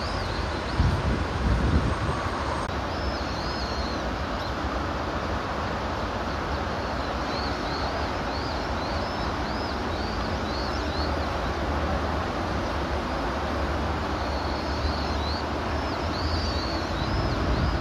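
Steady outdoor rumble and hiss, with small birds chirping in several short runs of high notes over it.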